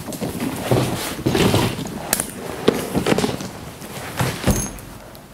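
Bagi Easyfold 3 stroller being unfolded: a run of clicks, clacks and rattles from the folding chassis and seat unit as the frame opens out, with a firmer knock near the end.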